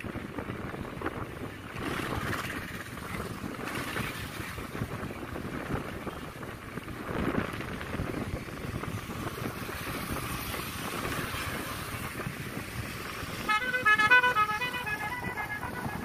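Steady running and wind noise of a vehicle crossing a bridge. About three-quarters of the way in, a vehicle horn sounds a quick series of short beeps for about a second and a half. It is the loudest sound.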